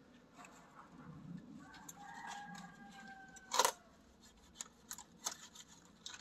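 A head of cabbage being cut from its pot with a knife: one sharp crack about halfway through, then several lighter snaps and crunches of leaves and stalk. Before the crack, a drawn-out two-pitched call, falling slightly, lasts about two seconds in the background.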